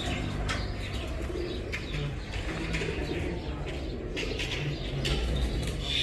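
Domestic pigeons cooing in short low calls now and then, with wing flapping as birds take off and hover over the loft.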